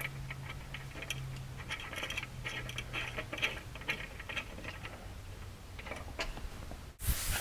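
Faint scratching and small metallic clicks of a nut being started by hand on a bolt with washers, fitted through a UTV's frame.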